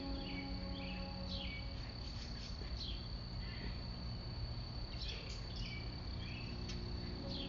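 Outdoor ambience: a steady high insect trill with birds chirping in short falling calls about every second and a half, over a low background rumble. A faint low hum fades out about a second in and returns near the end; no horn blast sounds.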